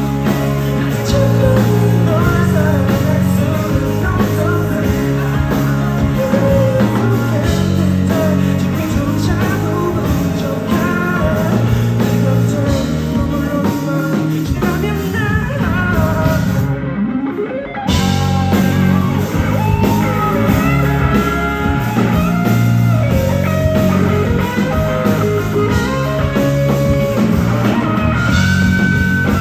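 Live rock band playing an instrumental passage of an indie-rock song, with electric guitar over bass and drums. About two-thirds of the way through the band briefly drops out and a rising sweep leads back in.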